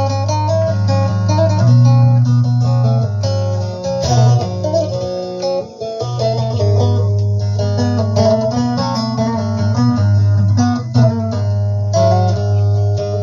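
Bağlama (saz) playing a plucked instrumental melody over steady, sustained bass notes.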